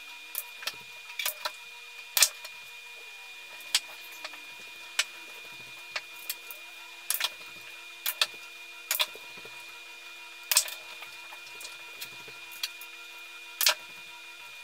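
Sped-up pool play: sharp clicks of the cue tip on the cue ball and of balls knocking together, about twenty at irregular intervals, the loudest about two seconds in and near the end, over a steady faint hum.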